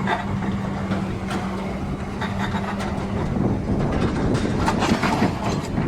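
Steady low mechanical rumble with a hum that stops about three seconds in, and scattered clicks and knocks.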